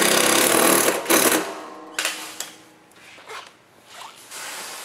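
Cordless power driver running hard as it drives a fastener home into the exhaust shield, with a brief break and a short final burst before it stops about a second and a half in. A single sharp click follows, then quieter handling noises.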